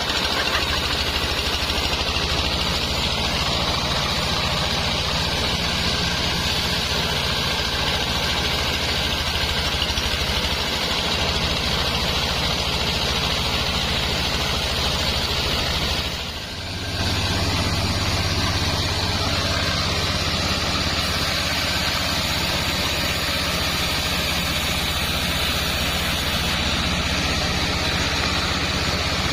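Sawmill saw machinery running steadily, a constant engine-like hum with a high whine from the saw. The level dips briefly about halfway through, then the running goes on with a slightly heavier low hum.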